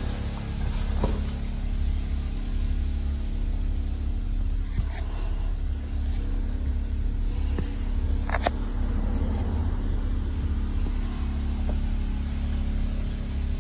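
Steady low rumble and hum of a car running, heard from inside the cabin, with a few light clicks, the sharpest a little over eight seconds in.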